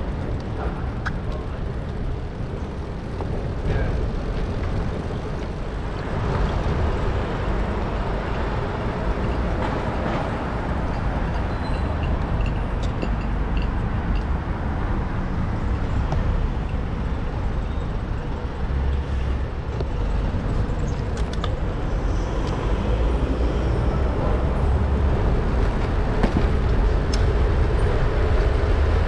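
Busy city road traffic heard from a bicycle in the traffic stream: cars and buses running close by, with a steady heavy low rumble.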